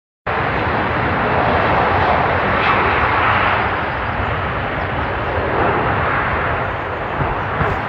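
Boeing 757 airliner's jet engines, a loud steady rushing noise that cuts in suddenly just after the start, from the climbing plane whose engine has failed after a bird strike.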